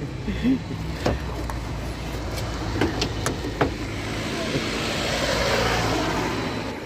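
A motor vehicle passing by: a steady low hum under a broad noise that swells to a peak a little after halfway and then fades. A few sharp clicks or taps come in the first four seconds.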